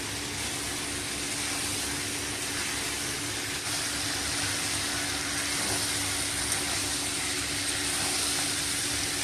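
Mixed vegetables frying in a steel kadai of spiced oil, stirred with a spatula: a steady sizzling hiss, with a faint steady low hum underneath.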